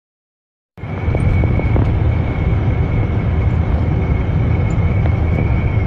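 Steady low rumble of a moving vehicle heard from inside the cabin, with a thin constant high whine over it; it cuts in abruptly just under a second in.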